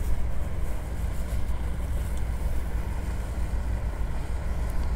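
Steady low rumble of wind buffeting the microphone at the water's edge.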